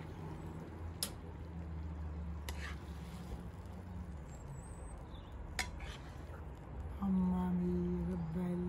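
Pasta being served from a stainless steel frying pan with metal tongs and a spoon: a few sharp metal clinks against the pan and plate. About seven seconds in, a steady low hum starts and becomes the loudest sound.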